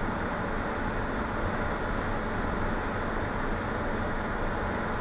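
Steady engine and road noise heard inside a lorry's cab while it cruises along a motorway.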